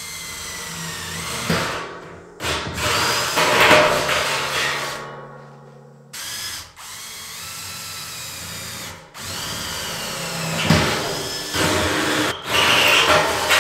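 Cordless drill cutting 1.5-inch holes through the thin steel wall of a 55-gallon drum, its motor whine rising and falling in pitch as the bit bites. Two cuts: the first stops suddenly about six seconds in, and the second starts straight after and grows louder toward the end.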